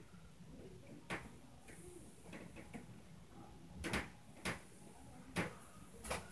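Scattered sharp knocks and thumps from the flat upstairs, about five of them a second or so apart, the loudest about four seconds in: the stomping of upstairs neighbours.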